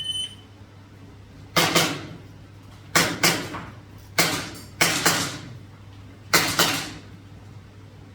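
Shot-timer start beep, then an airsoft pistol-calibre carbine firing about nine shots, mostly as quick pairs a few tenths of a second apart, with a pause of a second or more between pairs.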